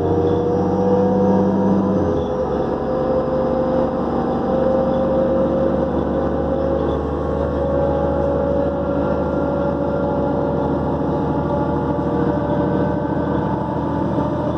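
New Flyer D40LF diesel transit bus under way, its turbocharger whine rising slowly in pitch over the engine's drone. The low engine note changes abruptly about two seconds in.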